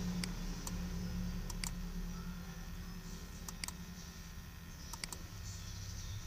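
Computer mouse clicking several times, short sharp clicks mostly in close pairs, over a low steady hum.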